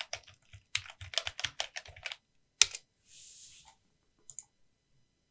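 Typing on a computer keyboard: a quick run of keystrokes for about two seconds, then one hard keystroke. After it come a short hiss and two light clicks near the end.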